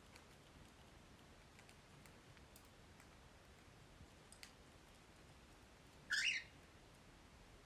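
Pet parrots eating seed: faint scattered clicks of pecking and husking, and one short chirp rising in pitch about six seconds in.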